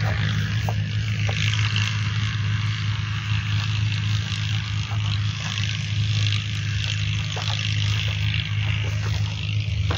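A steady low mechanical hum, like an engine running at a constant speed, under an even high-pitched hiss.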